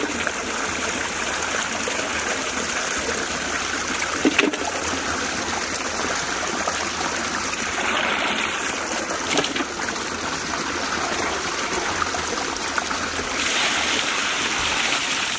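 Water running and splashing steadily. About thirteen seconds in it grows louder as water is poured from a metal pot into a large aluminium vessel of raw chicken pieces, with a few light knocks along the way.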